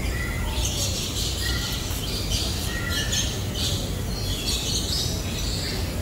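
Several birds calling at once: chirps and squawks overlapping, with a few short whistled notes, over a low steady rumble.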